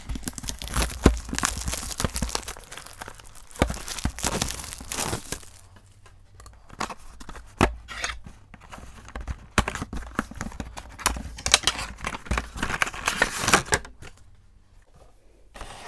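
Small cardboard box and plastic packaging being torn open and handled: irregular tearing, crinkling and clicks of cardboard, busiest in the first few seconds, sparser in the middle, with another flurry a little before the end.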